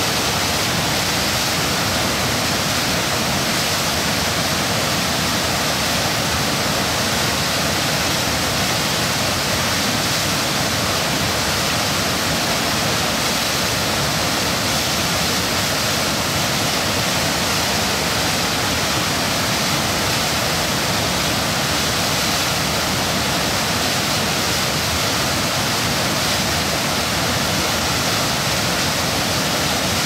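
Waterfall cascading down granite slabs, a steady, even rush of water with no change throughout.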